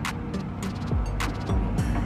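Background music with a steady drum beat: low kicks and sharp high percussion hits.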